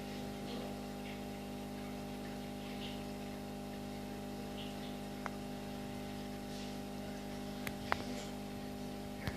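Steady electric hum of an aquarium filter motor, picked up by a camera inside the tank, with a few sharp clicks in the second half.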